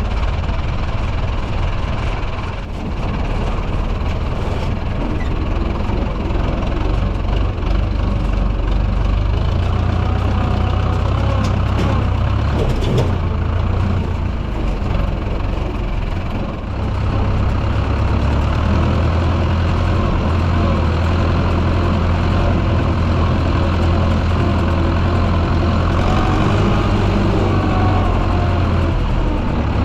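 Zetor tractor's diesel engine running steadily with a deep, low drone. There are short dips in level near the start and a little past the middle, and a single sharp knock about halfway through.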